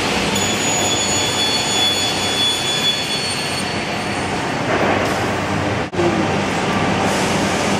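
Steady din of woodworking machinery on a furniture factory floor, with thin high whines over it for the first few seconds.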